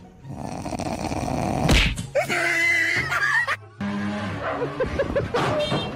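A dog making drawn-out vocal noises that wander up and down in pitch, with a sharp thump about two seconds in. It cuts off suddenly after about three and a half seconds.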